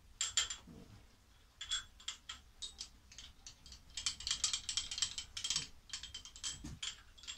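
Rapid mechanical clicking and ticking as the table handwheel of a SIEG vertical milling machine is worked by hand. A few scattered clicks come at first, then a quick, dense run of them from about halfway through.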